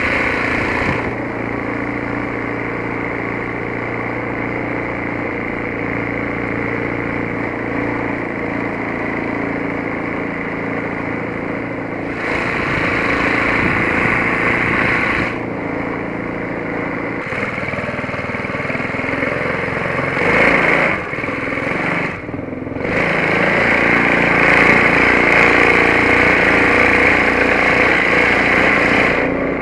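A 6.5 hp PPF Wood Duck mud motor, a small single-cylinder four-stroke engine driving a long-tail propeller, runs steadily at speed, pushing the boat along. A rushing hiss over the engine drone swells and fades several times. The engine note dips briefly about three-quarters of the way through, then comes back up.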